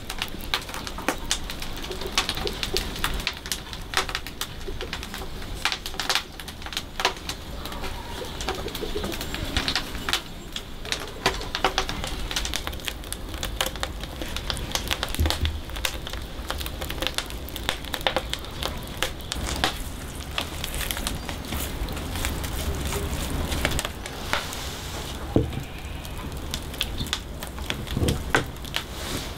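Marinade being stirred in a wooden bowl with a silicone basting brush: soft scraping with frequent small clicks and crackles over a steady low hum. A dove coos in the background.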